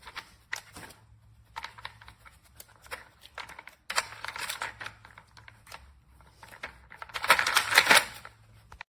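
Plastic dog puzzle feeder toy being played with: irregular clicking, clattering and rustling, loudest in a stretch near the end, then the sound cuts off suddenly.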